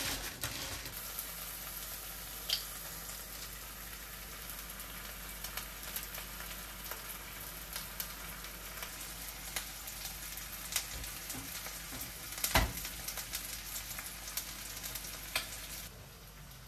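An egg frying in oil in a nonstick frying pan: a steady sizzle with scattered small pops and crackles, and one sharper click about three-quarters of the way through. The sizzle stops shortly before the end.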